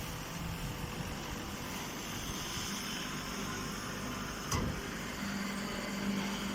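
Hay and grass baler machine running with a steady mechanical hum, and a single sharp click about four and a half seconds in.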